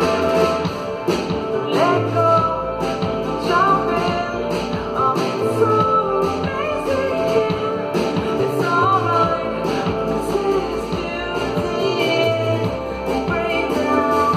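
Live band music with a woman singing over a steady beat, keyboards and a recurring bass line.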